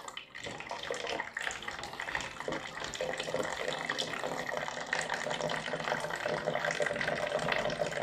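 Hot water running in a thin stream from a homemade water heater's outlet pipe into a plastic jug, a steady splashing trickle.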